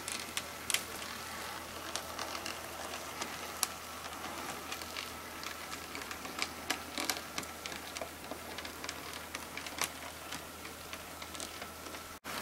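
HO scale 2-6-8-0 Mantua steam locomotive mechanism running on track: its open-frame motor gives a faint steady whine under irregular light clicking and ticking from the wheels and gearing on the rails.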